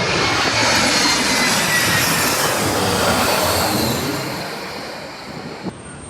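Jet airliner's engines passing low overhead on landing approach: a loud rush with a falling whine that fades away over the last couple of seconds.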